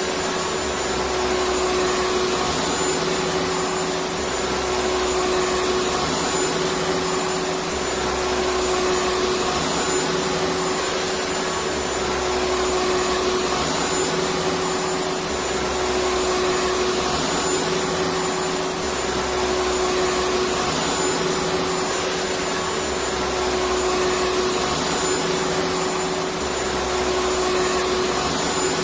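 Vacuum cleaner running steadily: a dense, even whoosh with a constant hum near its motor pitch. There is also a low throb that swells and fades about every two seconds.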